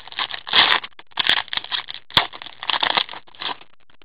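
Foil wrapper of a hockey card pack crinkling and tearing as it is ripped open, in irregular bursts with a few sharp snaps, then the cards sliding out of it.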